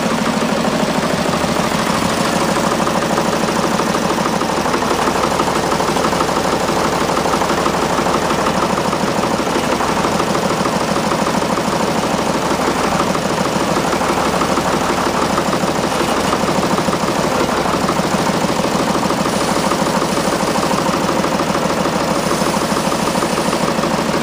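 Front-end loader's engine running steadily at a constant speed.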